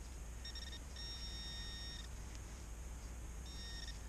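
Metal detector beeping on a buried piece of aluminum: a short beep, a longer beep of about a second, then another short beep near the end, all at one steady pitch.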